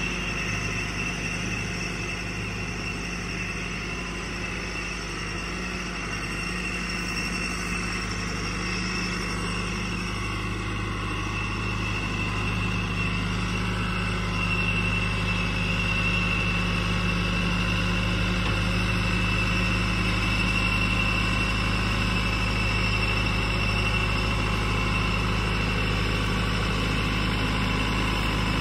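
Case IH JX95 tractor's diesel engine running steadily as the tractor drives, with a high whine over the engine note. Both get louder about halfway through.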